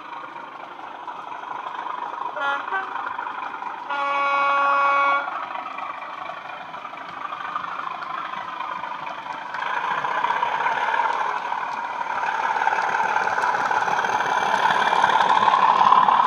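Sound decoder of a Bachmann Class 37 model diesel locomotive playing through two small megabass speakers. A very short toot sounds about two and a half seconds in, then a steady horn blast of just over a second about four seconds in. The diesel engine sound grows louder from about ten seconds in as the model runs up to and past.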